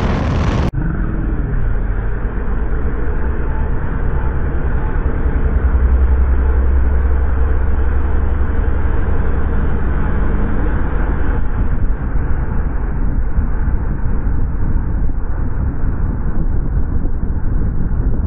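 Outboard engine driving a small cabin boat at speed, a steady low drone with water rushing past the hull, as the boat climbs onto plane with its bow raised. The engine's low note is strongest a few seconds in.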